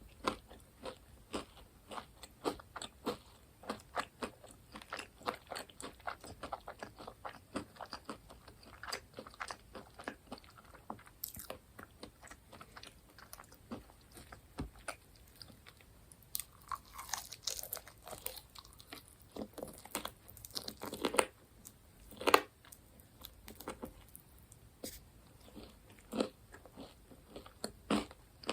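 Close-miked chewing of crispy fried food: a fast run of crunchy crackles between bites, with a few louder crunches a little past two-thirds of the way through.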